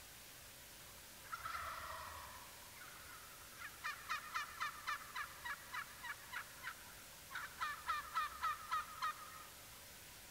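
Wild turkey calling: one short, rough call about a second in, then two long runs of quick yelping notes, about four or five a second, with a short break between them.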